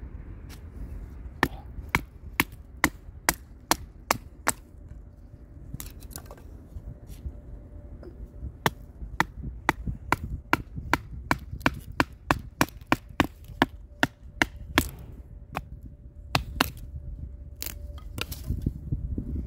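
Kubey 269 bushcraft knife blade driven into dry wood in a run of sharp wooden knocks, about two a second, with a couple of short pauses.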